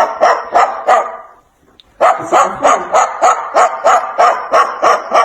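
Rapid bark-like yapping, about four yaps a second: a short run at the start, then a longer run from about two seconds in.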